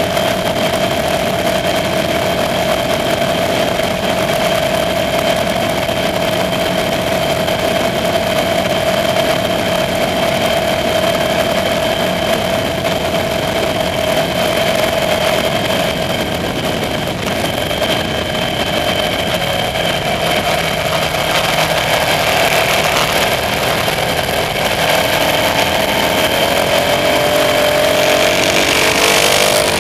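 KTM Super Duke R's V-twin engine running steadily at cruising speed, heard from the rider's position over a rush of wind and road noise. The engine note shifts in pitch in the last few seconds.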